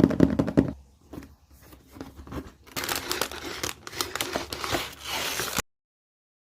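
Toy packaging being torn open and crinkled, with a quick run of sharp clicks at the start and a long stretch of crackly tearing that stops abruptly near the end.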